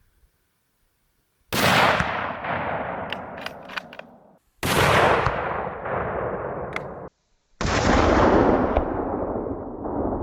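Hunting rifle shot, with its echo rolling away over the terrain, heard three times in a row. Each report starts with a sudden crack and is cut off abruptly after two to three seconds of dying echo.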